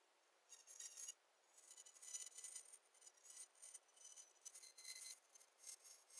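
Faint, intermittent whir and scrape of a handheld rotary tool's small bit grinding into the plastic at the hinge mount of an HP 14-CK laptop's palmrest case, in short irregular passes.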